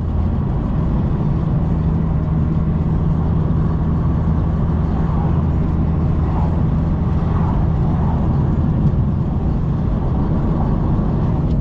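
Inside the cabin of a 2006–2011 Honda Civic Si cruising steadily at highway speed, its K20 four-cylinder running through a Full Race 3-inch exhaust and Skunk2 Alpha header: a steady low exhaust hum under tyre and road noise.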